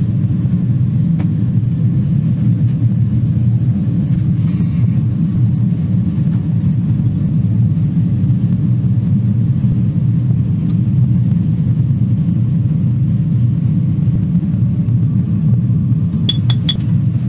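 A steady low rumble with no clear pitch, and three short sharp clicks close together near the end.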